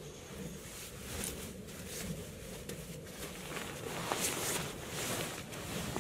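Fabric rustling and swishing in an irregular run of short bursts as a sleeping bag is handled and pushed into a bivy bag.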